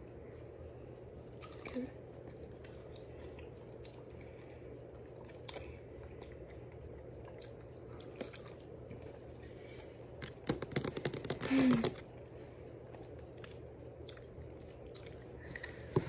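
Two people chewing and biting fresh strawberries and cherries for ASMR: faint wet mouth clicks and bites over a low steady hum, with a louder stretch of crackling about ten seconds in.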